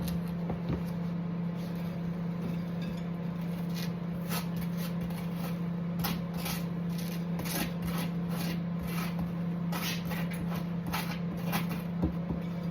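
Butter knife scraping across toast in short, irregular strokes, over a steady low hum.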